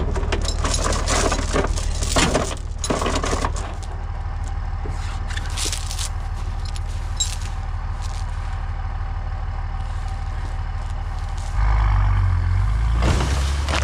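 Pickup truck engine running steadily, with metallic clanks and rattles over the first few seconds. Near the end the engine gets noticeably louder and heavier.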